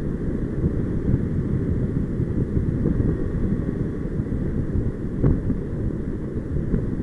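Wind from the paraglider's airspeed rushing over the camera's microphone in flight, a steady, low buffeting rumble. There is a brief faint click about five seconds in.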